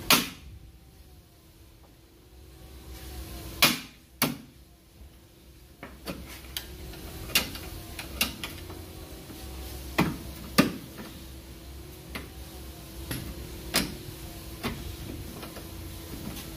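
Irregular sharp metal clanks and knocks from a long-handled wrench and socket on the front lower control arm bolts, loudest at the very start, with a steady hum underneath.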